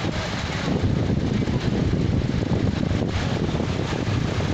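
Tractor engines running steadily as a low rumble, with wind noise on the microphone.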